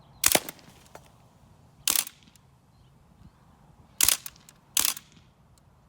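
Umarex Legends MP40 CO2 BB submachine gun firing four separate single shots, irregularly spaced about one to two seconds apart. Each shot is a sharp crack followed at once by a second snap.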